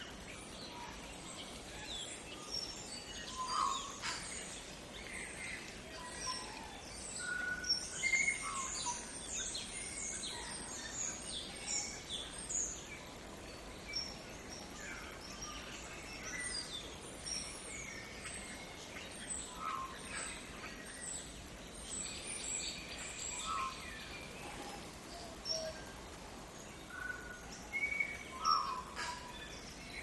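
A chorus of many wild songbirds singing and calling in dense bush: overlapping chirps and whistles, busiest through the middle, over a steady faint background hiss.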